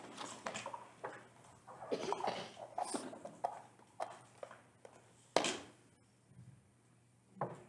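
Plastic Easter eggs being handled and opened on a table: a run of small clicks and rustles, then a sharp knock about five seconds in and another shortly before the end.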